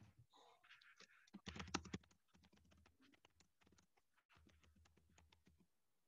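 Faint typing on a computer keyboard: scattered keystroke clicks with a quick, louder run of keystrokes about one and a half seconds in.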